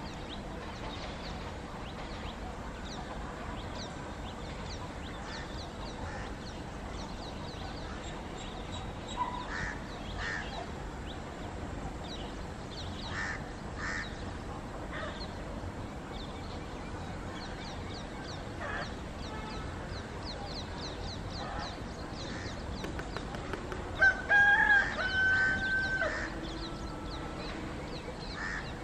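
Birds chirp and call over a steady low background noise. Near the end the approaching WAG-9 electric locomotive sounds its horn twice, a short blast then a longer one, much louder than anything else.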